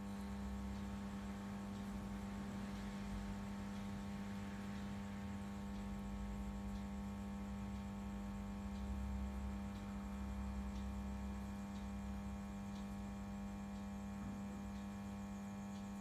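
Steady electrical hum: one constant low tone with a stack of fainter overtones above it, unchanging throughout.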